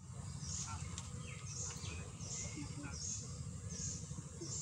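Birds calling outdoors: a short high call repeated about every three-quarters of a second, with softer chirps between, over a steady low rumble.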